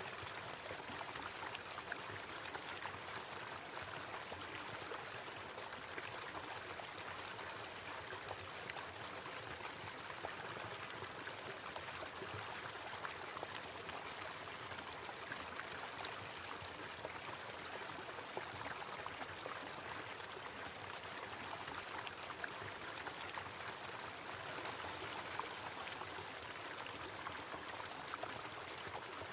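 Small waterfall running steadily: an even rush of falling water with fine splashing.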